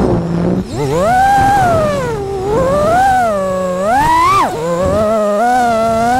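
Brushless motors and propellers of a 5-inch FPV quadcopter (EMAX ECO II 2207 1900kv) whining, the pitch rising and falling with throttle through its dives and flips. There is a brief dip at the start, then repeated swells, and a sharp rise and drop about four and a half seconds in.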